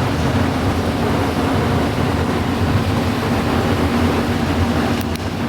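Steady, loud mechanical hum and noise of shop machinery, with a couple of light clicks near the end.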